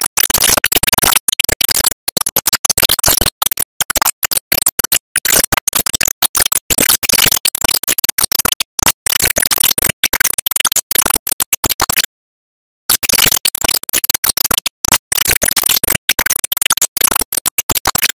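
Loud harsh noise like heavy static, spread evenly from low to high pitch and cutting in and out abruptly many times a second, with a break of nearly a second about twelve seconds in.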